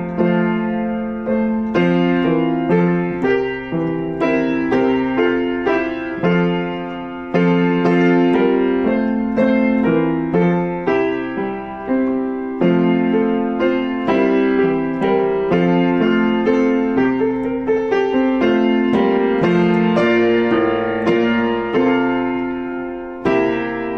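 Gentle piano music: a slow melody of struck notes, each ringing and fading, played without a break.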